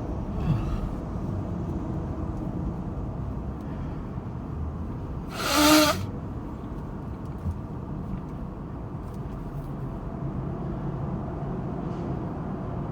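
Steady road and engine rumble inside a moving car, with one short, loud, voiced sneeze from a man with a stuffed-up head cold about five and a half seconds in.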